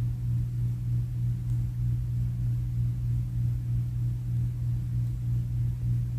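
Steady low hum with a faint waver in loudness and no other events.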